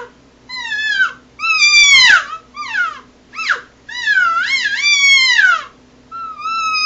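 Excited cow elk calls blown on a hunter's cow elk call: about six high-pitched, nasal whines of differing length, each sliding down in pitch at its end, the longest one wavering up and down about four seconds in. Estrus-sounding cow calls used to excite bulls.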